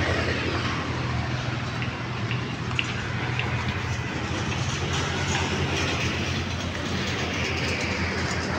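A steady low mechanical hum, like a running engine, under continuous outdoor noise.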